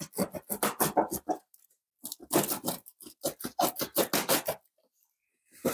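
Box cutter slicing through packing tape and cardboard in quick back-and-forth strokes, in three runs with short pauses between.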